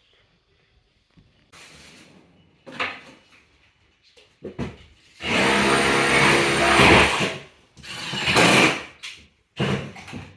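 A power tool's motor running in short bursts with a steady hum and hiss. The longest burst, about three seconds, comes in the middle.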